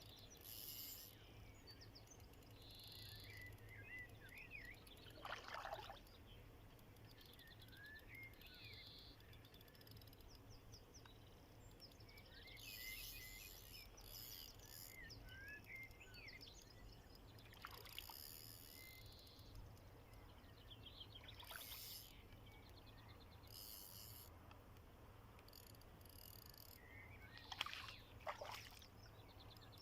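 Faint outdoor ambience with small birds chirping and singing on and off. A few brief louder noises stand out, the sharpest a pair near the end.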